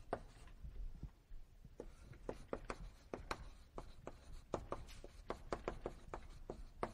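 Writing on a lecture-hall board: a run of quick, irregular taps and short scratches from the writing strokes, with a brief lull about a second in.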